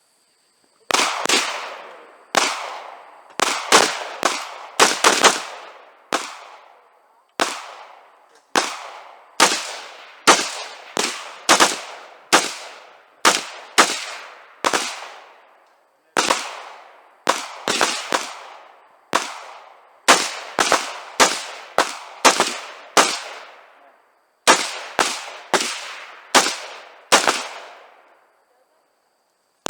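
A long string of gunshots fired quickly one after another, sometimes two or three a second, each with a short echo tail, broken by a few brief pauses.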